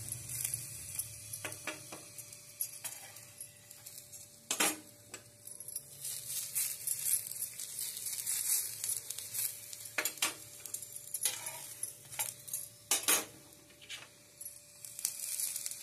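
Onion paratha sizzling in ghee on a hot tawa, with a steel spoon clinking and scraping against the pan a few times as it presses the paratha.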